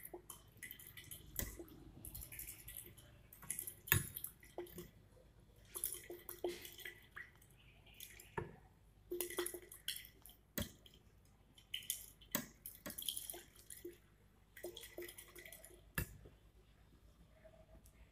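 Liquid swishing in a glass conical flask as it is swirled by hand during a titration, with several sharp clicks of glass, the loudest about four seconds in.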